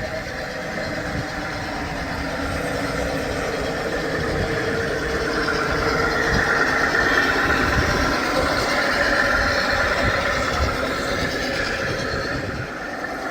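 A consist of large-scale (1:29) model diesel locomotives, two SD9s and a GP60, running on garden track: a steady diesel engine-like rumble mixed with running noise. It grows louder toward the middle as the train comes close, then eases off near the end.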